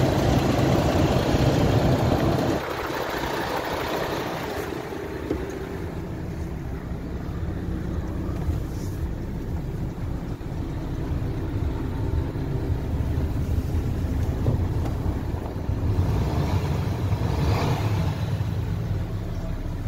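MAN TGS 18.400 truck's six-cylinder diesel engine idling steadily. It is loud at first, then turns muffled and quieter from about two and a half seconds in, as heard from inside the cab.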